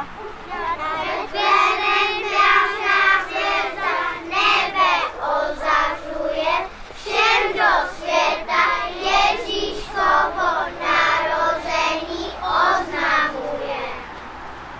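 A group of children singing a Christmas song together, the song ending about a second before the end.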